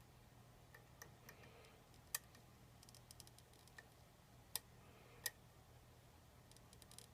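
Scattered small sharp clicks, with a few quick clusters and three louder ticks, as a lock pick works the pin tumblers of a challenge lock. There is lots of clicking but nothing moving: the lock is not opening. A faint steady low hum runs underneath.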